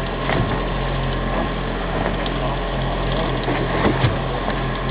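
Fishing boat's engine running steadily, with a few light clicks and ticks scattered through it.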